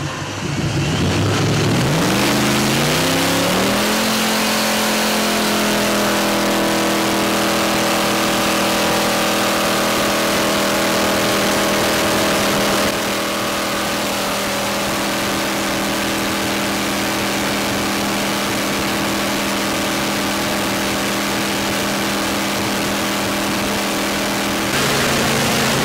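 Fire jet boat's engine revving up over the first few seconds, then running steadily at high speed with a rush of water and wind. The engine note drops to a lower pitch near the end.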